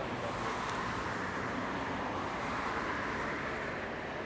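Steady outdoor background noise: an even, unbroken hiss with no distinct event in it.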